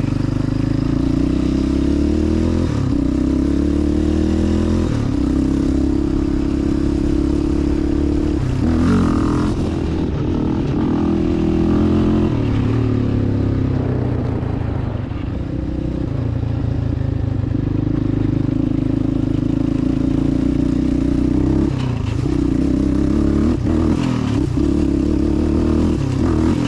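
2006 Yamaha Raptor 700R's single-cylinder four-stroke engine running under throttle while riding, its pitch climbing, dropping back and climbing again several times.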